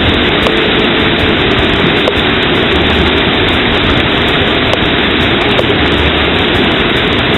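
Steady, loud rush of falling water.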